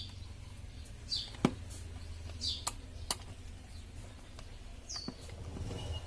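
A small bird chirping in short, falling calls spaced a second or more apart, with a few sharp clicks from hands fitting a cut-out to a horn's wiring, over a low steady hum.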